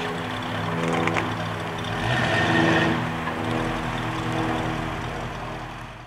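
Plymouth Road Runner's V8 held at high revs during a burnout, with tyre noise from the spinning rear tyres over the engine. The sound swells about two seconds in, then fades away.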